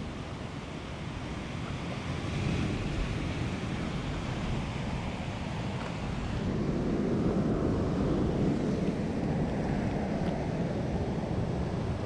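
Steady rushing of wind on the microphone mixed with surf from the sea below, swelling louder a little past halfway through.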